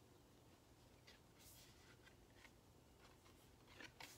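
Near silence, with a few faint soft ticks and rustles of stiff board-book pages being handled and turned.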